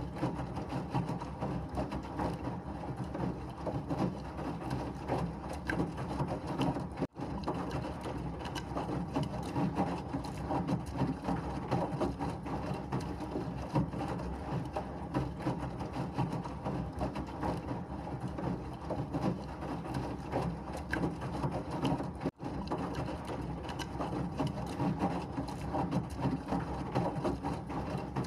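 Washing machine running, a steady rumbling wash with a constant fine clatter from the turning drum. The sound drops out for an instant twice, about seven seconds in and again some fifteen seconds later.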